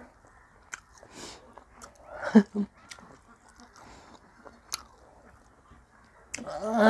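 Close-up eating mouth sounds from someone eating with their fingers: scattered lip smacks, finger licking and chewing. A short hummed vocal sound comes about two and a half seconds in, and a longer one near the end.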